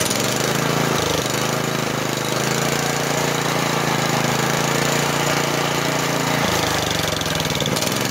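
Small Honda engine running and turning a go-kart torque converter and its belt. It speeds up about a second in, holds the higher speed, and drops back near the end.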